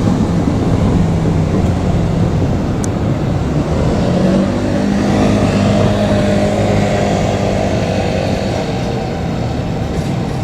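JR Kyushu 817 series electric train running by, a loud steady rumble with humming tones underneath.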